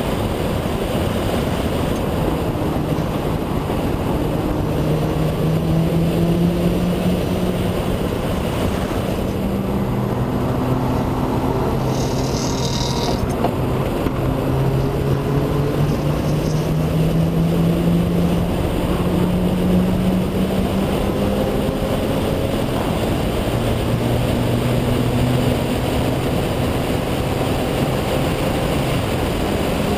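Mazda RX-7's rotary engine pulling hard at speed under heavy road and wind noise. Its pitch climbs slowly through each gear and drops at every upshift, about three times.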